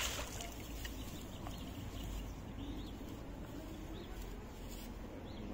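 Quiet outdoor ambience: a steady low wind rumble with a few faint bird chirps.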